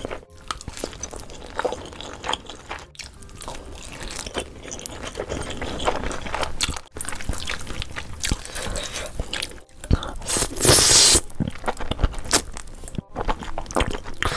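Close-miked eating of spicy sauced noodles: wet mouth sounds, chewing and slurping, with chopsticks scraping and clicking against a stainless steel bowl. A longer, louder slurp comes about ten and a half seconds in.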